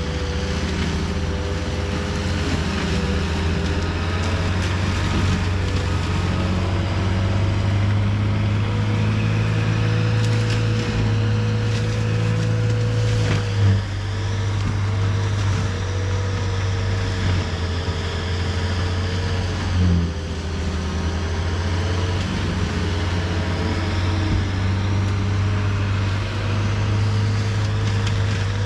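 CAT 259D3 skid steer's diesel engine running steadily under load while driving a Gyrotrac forestry mulcher head, a constant low hum with a wavering whine above it. Two brief knocks stand out, about halfway through and again about two-thirds in.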